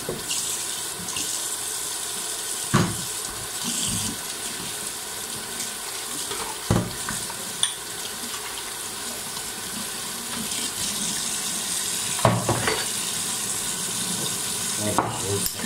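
Tap water running steadily into a stainless steel kitchen sink during washing-up by hand, with a few short knocks of items against the sink.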